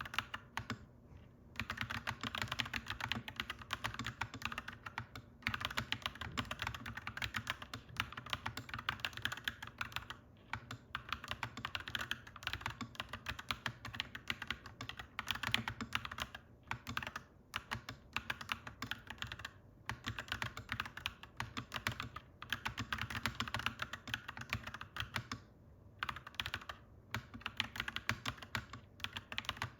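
Clacky mechanical keyboard being typed on fast and continuously, in runs of rapid keystrokes broken by short pauses every few seconds. A steady low hum runs underneath.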